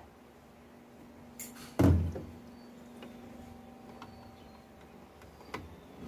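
Plastic softener bottle and measuring cap handled at a top-load washing machine's dispenser drawer. One dull knock comes about two seconds in, just after a light click, and a lighter click comes near the end.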